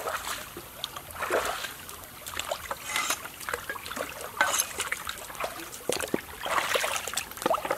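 Shallow stream water trickling, with irregular sharp knocks of a cleaver on a chopping board. Splashing footsteps through the water near the end.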